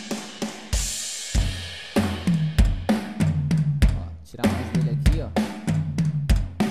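Recorded acoustic drum kit playing back a steady groove of kick, snare and tom hits, with a cymbal crash about a second in, run through a parallel FET-style compressor (jsAudio jsCompShaper) that the producer says makes the drums dirtier.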